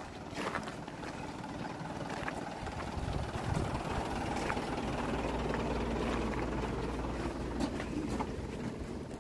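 An engine idling with a steady low hum that grows louder over the first three seconds and eases near the end, with footsteps crunching on gravel.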